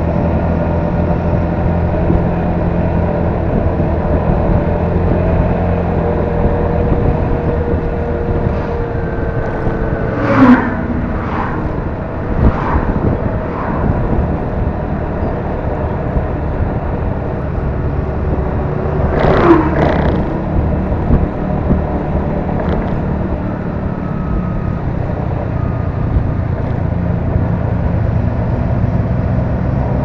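Honda Forza 300 scooter's single-cylinder engine running at a steady cruise, mixed with wind and road noise. Two brief louder swells come about ten and nineteen seconds in.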